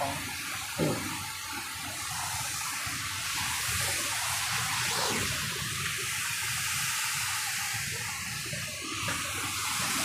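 Steady rush of a waterfall: an even hiss of falling water.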